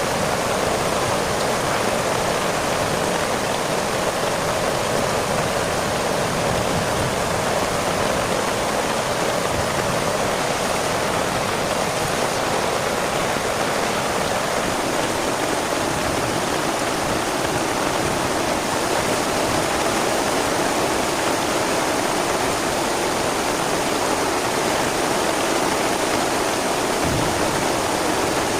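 Steady, unbroken rushing of water, heavy and even throughout.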